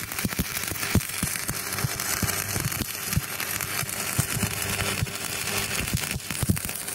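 Stick-welding arc burning two coated electrodes at once on a metal plate: a continuous crackling sizzle broken by irregular sharp pops of spatter.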